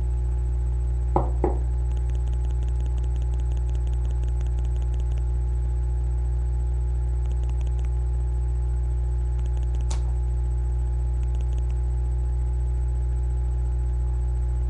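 Steady low electrical hum, with faint quick scratchy strokes of a hairbrush back-combing hair and two soft knocks about a second in.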